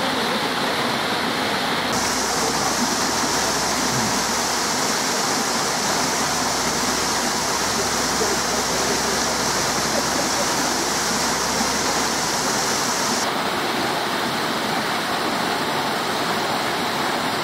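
Steady rushing water, a continuous even noise. A higher hiss joins about two seconds in and cuts off suddenly after about thirteen seconds.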